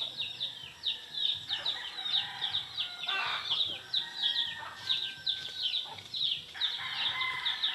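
Chickens clucking, with a steady run of short, high, falling chirps several times a second and a few louder clucking calls.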